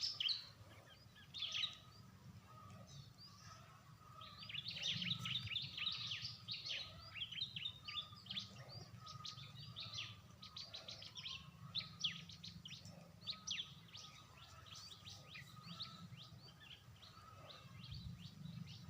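Small birds chirping in a long run of short, high notes, thickest from about four seconds in until near the end, over a low steady hum.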